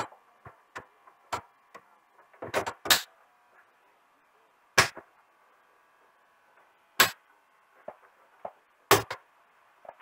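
Plastic frame of an LCD TV's backlight assembly being pressed into place over the diffuser sheets: sharp plastic clicks and snaps. A few small ones come first, then a quick cluster about three seconds in, then three louder single snaps about two seconds apart.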